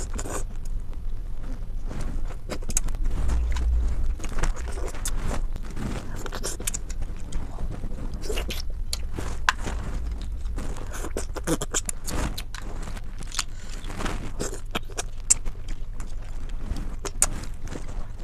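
Clam shells clicking and scraping against each other as they are handled, many separate small clicks, over a steady low rumble.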